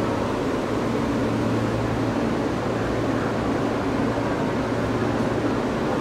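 Steady rumble and hum inside a running New York City subway car on the L line: wheels on rail and the car's motors and ventilation, with a constant low drone.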